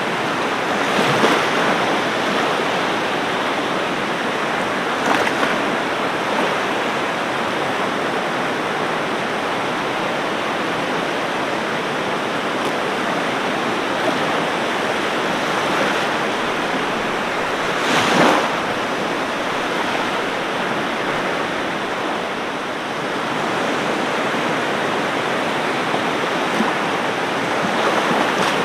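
Ocean waves breaking on a beach: a steady rushing wash of surf, with a few louder breaks, the strongest about two thirds of the way through.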